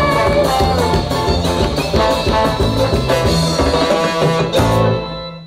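Live band playing an upbeat tune with drums, brass and a sousaphone bass line, which stops about five seconds in as the song ends.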